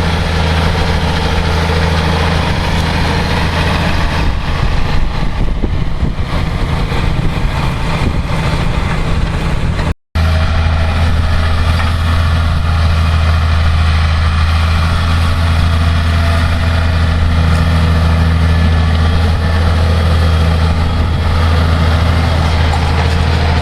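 Massey Ferguson 6490 tractor's six-cylinder diesel engine running with a steady low drone. The sound cuts out for a moment about ten seconds in.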